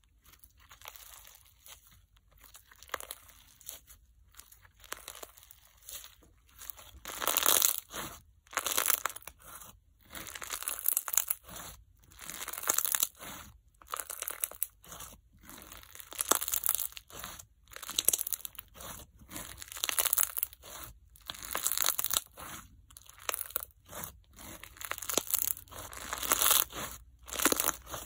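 Crunch slime made with bingsu beads and microbeads being stretched and squeezed by hand, the beads crunching and crackling with each squeeze. The squeezes come in repeated bursts about a second apart, softer for the first several seconds and louder after that.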